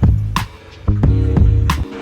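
Background music with a heavy beat: deep kick drums and sharp snare-like hits over a sustained bass line.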